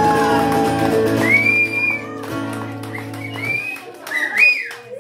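Live acoustic guitar and voice finishing a song on a long held chord, with the crowd cheering and whistling over it. The music stops about three and a half seconds in, and clapping and cheers carry on.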